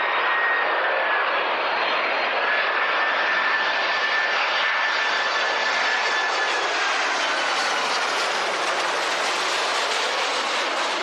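Boeing 767-300 freighter's twin turbofan engines at approach power as the jet passes low overhead: a loud, steady jet roar with a high engine whine that slides lower in pitch as it goes by.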